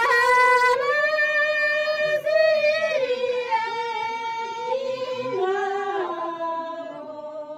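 Women singing a traditional welcome song in long, held notes that step slowly up and down, growing a little softer near the end.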